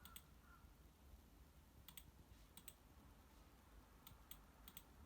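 Faint computer mouse clicks, several in quick pairs like double-clicks, over near-silent room tone.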